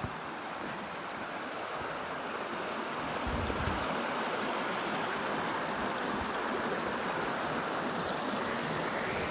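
Shallow creek water running and rippling over flat rock shelves: a steady rush that grows a little louder about three seconds in.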